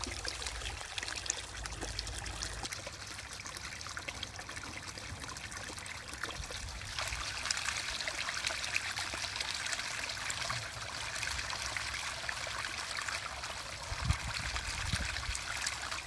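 Shallow stream water trickling steadily around a stainless steel canteen held under the surface to fill through a cotton bandana filter. The water sound gets louder and brighter about seven seconds in, and there are a couple of soft low bumps near the end.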